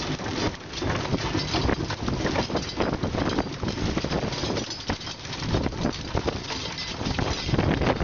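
Fishing boat's engine running at sea under gusty wind noise, with irregular knocks and clatter throughout.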